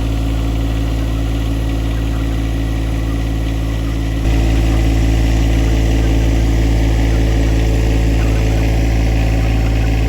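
An engine running steadily, getting louder about four seconds in.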